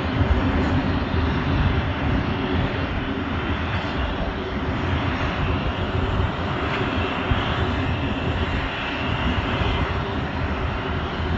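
Turbine noise from a parked Boeing C-17A Globemaster III: a loud, continuous rushing sound that keeps a steady level and pitch.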